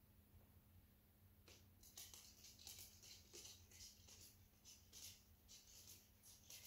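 Faint, irregular clicking of a small dog's claws on a hardwood floor as it walks, starting about a second and a half in, over a low steady hum.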